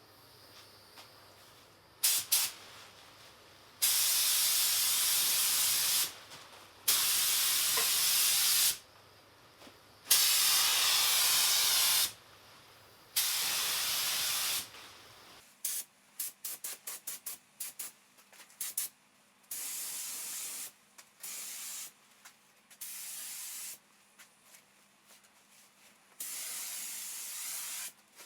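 Paint spray gun hissing in repeated passes of one to two seconds as clear lacquer is sprayed, with a run of short, quick trigger bursts about halfway through.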